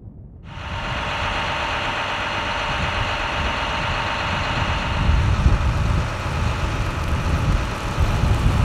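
A vehicle engine idling steadily close by, starting suddenly about half a second in. A deeper low rumble builds through the second half as a pickup truck drives past.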